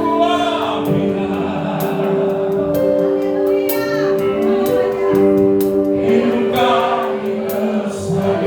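Live gospel worship music: a band with bass and drums playing under sung vocals, with held chords and a steady drum beat.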